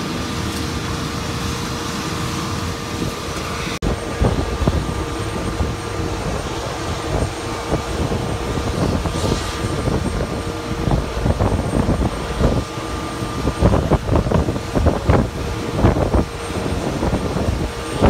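Airliner jet engines running at taxi idle, a steady whine under a roar. After a brief break about four seconds in, gusty wind buffets the microphone with irregular low rumbles.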